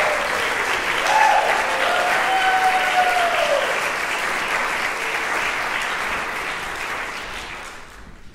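Audience applauding in a concert hall, with one long call from a listener over the clapping about a second in; the applause dies away near the end.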